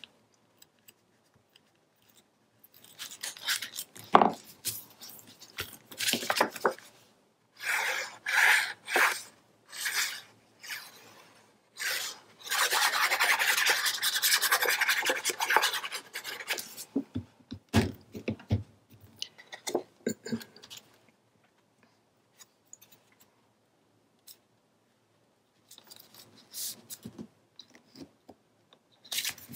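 Paper and cardstock being rubbed and handled: short rubbing strokes over cardstock, a longer stretch of steady rubbing about twelve seconds in, a few light clicks, and hands smoothing a glued paper panel down flat.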